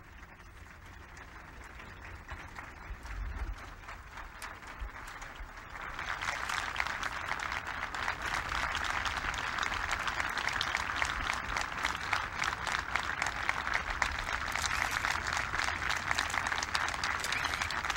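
Crowd applauding: the clapping swells slowly, grows clearly louder about six seconds in, then holds steady as a sustained ovation.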